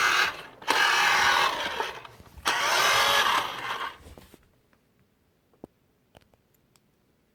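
Toy remote-control car's small electric motor and gears whirring in three bursts as it is driven and turned. It stops a little past four seconds in, leaving a few faint clicks.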